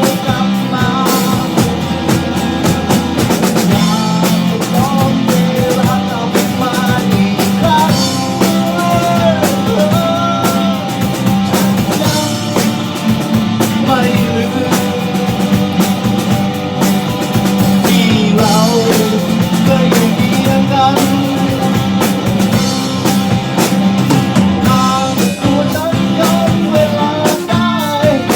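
Rock song with drums, guitar and a melodic line that bends and slides in pitch, playing continuously at a loud, steady level.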